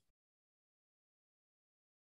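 Silence: the soundtrack is digitally blank.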